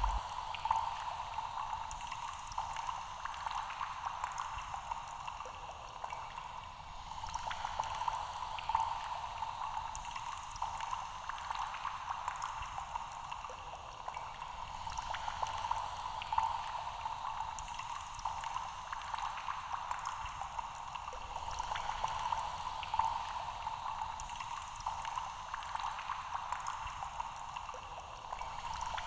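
Steady bubbling, water-like sound that swells and eases every few seconds.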